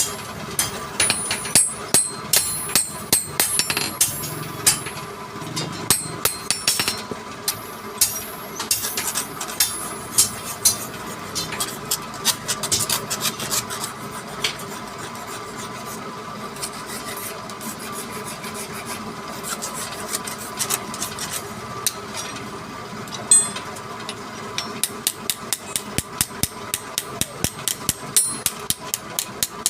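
Hammer blows in a shop, irregular at first with rasping or rubbing between them, then a quick steady run of strikes, about two to three a second, near the end.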